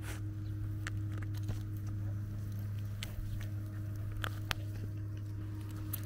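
Scattered small clicks and rustles of tall grass stems as a shiba inu pushes through them, over a steady low hum.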